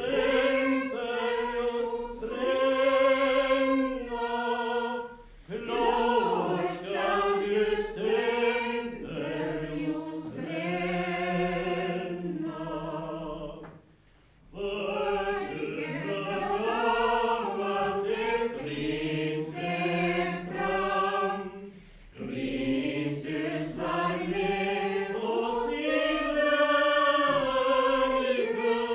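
A congregation singing a hymn unaccompanied, with no organ, men's and women's voices together on slow held notes. Short pauses come between the lines, the longest about halfway through.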